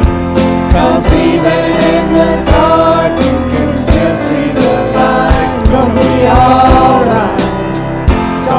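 Contemporary worship music: a church praise team singing a Christian song over band accompaniment, with a steady drum beat.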